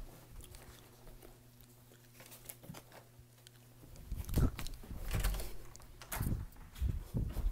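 A person chewing on a plastic water bottle cap close to the microphone. After a quiet stretch with a faint hum, irregular crunches and thumps start about four seconds in.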